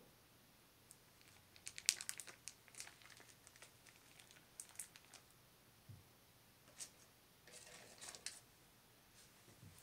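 Faint crinkling and light clicks of wrapping being handled, in a cluster about two seconds in and another near eight seconds, with a few scattered ticks between.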